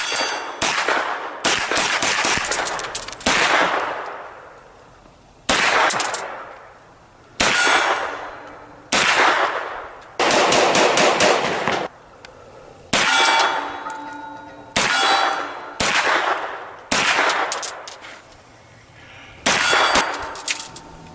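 Kel-Tec Sub-2000 9mm carbine firing about a dozen semi-automatic shots, spaced one to two seconds apart, each with an echoing tail; some are followed by a short metallic ring.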